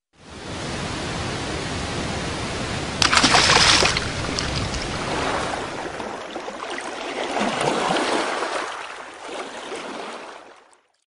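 Rushing water, with a loud splash about three seconds in and a second swell later, fading out near the end.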